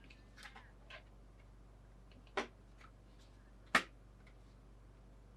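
Scattered sharp clicks of small hard plastic parts being handled: a few faint ones in the first second, then two louder single clicks, one a little before the middle and one past it.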